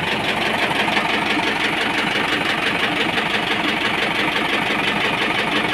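YTO X704 tractor's diesel engine running steadily with an even beat. It is the worn engine due for rebuild, running while blowing smoke.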